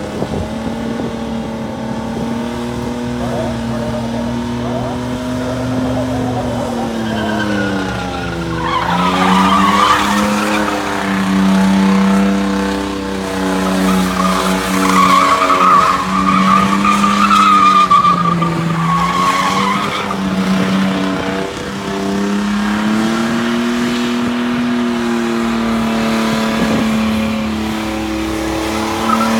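Ford EL Falcon burnout car with its engine held at high revs while the rear tyres spin and squeal. The engine pitch sags and climbs again a few times as the throttle is worked, and the tyre squeal is loudest through the middle of the burnout.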